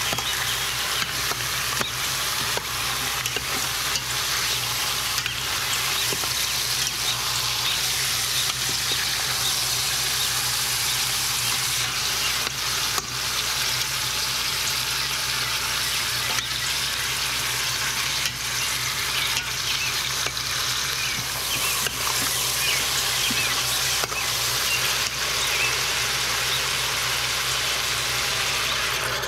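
Pork shoulder pieces sizzling as they brown in hot oil in an Instant Pot's stainless steel inner pot on the sauté setting, with frequent clicks and scrapes of a metal spoon turning the meat against the pot.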